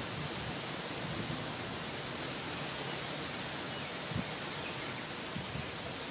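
Steady, even outdoor hiss, with a few soft low thumps: one about four seconds in and a couple near the end.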